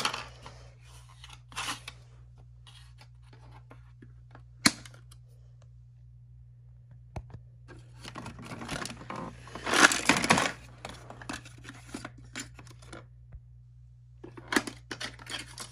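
Handling noises from a large plastic dinosaur toy and the small toys inside it: scattered clicks, one sharp click a little under five seconds in, a longer burst of rustling, scraping and clattering past the middle, and more scraping near the end.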